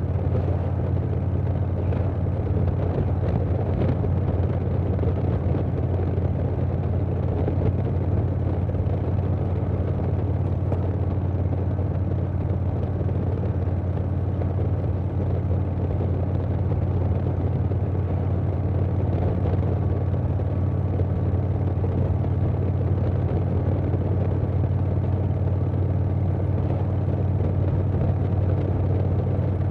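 Harley-Davidson Softail Standard's Milwaukee-Eight V-twin running through a Vance & Hines Big Radius 2-into-2 exhaust, holding a steady engine speed while cruising, with wind rush on the microphone.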